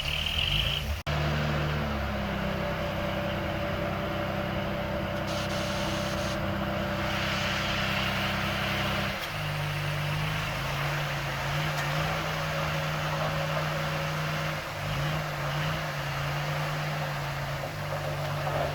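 Heavy diesel earthmoving machinery running steadily under load. The engine note shifts lower about nine seconds in, and the sound cuts out for an instant about a second in.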